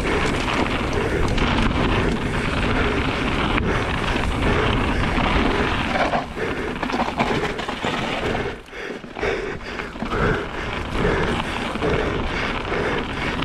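Wind rushing over the camera microphone and a mountain bike rattling over rough trail at downhill speed, dropping off briefly about nine seconds in.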